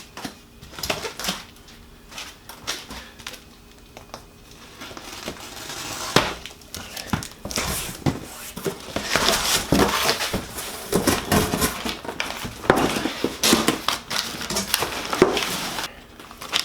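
Packing material rustling and crinkling as a shipping box is dug into, with scattered knocks and clicks of parts being handled. The rustling gets busier and louder about five seconds in.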